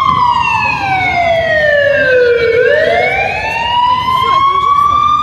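Siren wail, loud and pitched, with a slow fall in pitch over the first half followed by a rise back up; a siren effect in the performance soundtrack over the stage loudspeakers.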